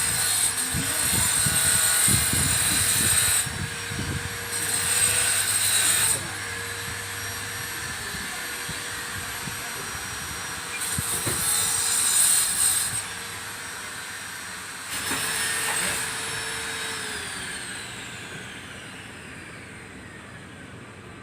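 Electric grinder with a ceramic-cutting disc cutting into tile in four harsh, screeching bursts over the motor's steady whine. Near the end the whine falls in pitch and fades as the motor is switched off and the disc spins down.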